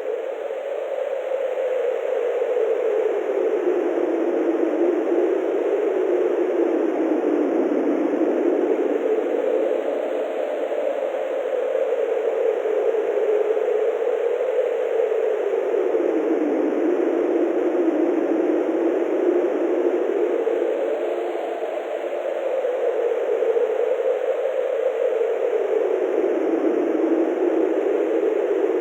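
Synthesized wind: filtered noise with reverb whose pitch slowly rises and falls in gentle gusts.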